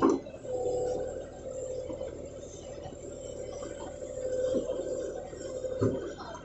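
John Deere tractor's engine and the hydraulics of its Bull backhoe attachment running as the boom and bucket move, with a steady whine throughout. A single sharp knock comes near the end.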